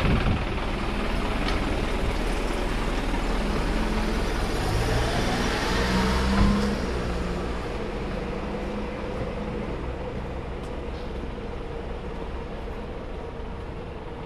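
Street traffic with a motor vehicle's engine running nearby, its sound rising to a peak about six and a half seconds in and then slowly fading away.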